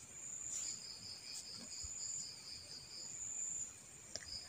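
Faint, high-pitched trilling of insects, two steady tones that break off and resume every second or so. A single small click near the end.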